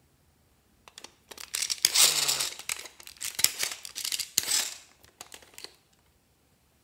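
A hard plastic Hello Kitty toy being twisted and pulled apart by hand. A few clicks, then several seconds of scratchy plastic scraping and crackling, with a brief squeak near the start.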